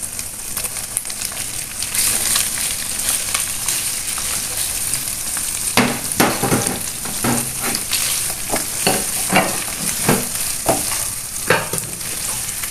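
Sliced meat frying in hot oil in a nonstick pan with egg and aromatics. The sizzle gets louder about two seconds in. From about six seconds a silicone spatula scrapes and knocks against the pan in a run of short strokes as the mixture is stirred.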